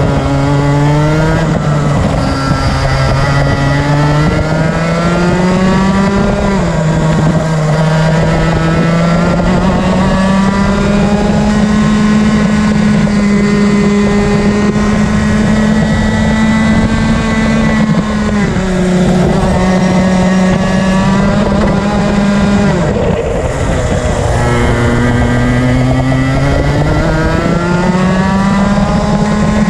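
Rotax Max Senior 125cc single-cylinder two-stroke kart engine at racing speed, heard from onboard. Its pitch climbs steadily along the straights and falls sharply three times as the kart slows for corners.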